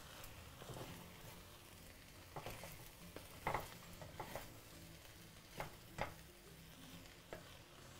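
Wooden spatula stirring cooked rice in a pot and scraping up the charred crust from the bottom: faint scraping with a few short scrapes and taps against the pot.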